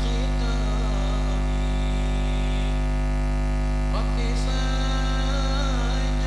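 Male voices singing a drawn-out sholawat melody through a PA system, over a loud, steady mains hum.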